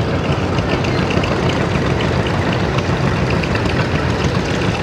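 Several antique farm tractor engines running at idle together, a steady low chugging with fine rapid ticking over it.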